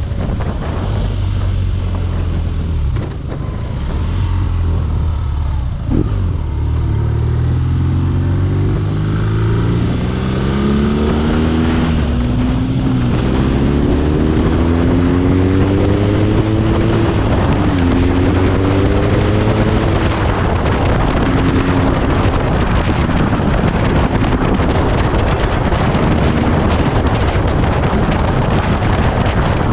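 BMW R nineT Urban G/S boxer-twin engine accelerating through the gears: a low steady note at first, then a rising note that drops back at each of several upshifts. Loud wind noise on the microphone builds as the bike reaches speed.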